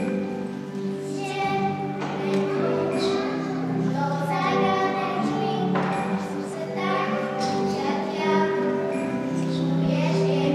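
Children singing a song together over backing music.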